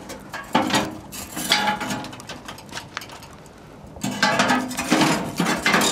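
Cast iron grill grate clanking and scraping against the steel firebox as it is set down over the coals and worked into place with a lifter: a series of sharp metal knocks with short ringing, busier in the last couple of seconds.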